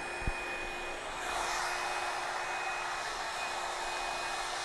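Hair dryer blowing steadily, with a faint steady whine; its hiss grows louder about a second in. A soft knock comes just after the start.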